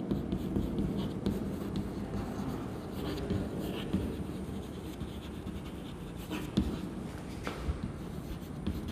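Chalk writing on a chalkboard: a run of short scratching and tapping strokes as letters are written, with a couple of sharper taps late on.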